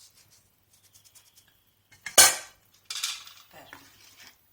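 A kitchen utensil against the cooking pan: a few light taps, then one sharp clink about two seconds in, followed by about a second of scraping.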